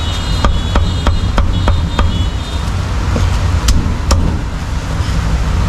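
Cleaver chopping cooked meat on a wooden chopping block, about three quick chops a second for the first couple of seconds, then a few scattered strokes. A steady low rumble of street traffic runs underneath.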